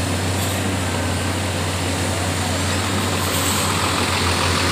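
Diesel engine of a Hino FL235TI truck running at low speed as the truck rolls up close, a steady low hum that pulses faintly and grows a little louder toward the end.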